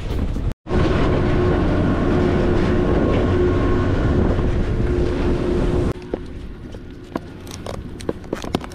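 Snowboard sliding over firm groomed snow: a steady scraping rumble that stops abruptly about six seconds in as the rider halts. Then a few sharp clicks as the rider handles the binding straps.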